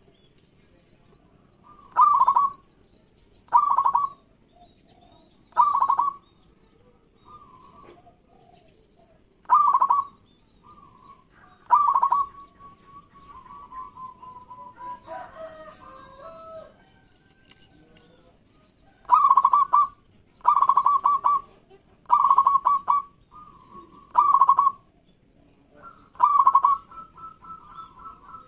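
Zebra dove (perkutut) cooing: about ten loud, short trilled coos in two runs, with a gap of several seconds between the runs and quieter, wavering calls in that gap.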